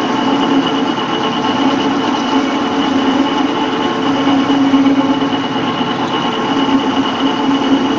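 Small belt-driven metal lathe running under load as an angled parting blade cuts a V-groove into a metal pulley: a steady machine drone with a steady high tone in it. The drive belts are slipping, and even this small cut makes the lathe want to bog down.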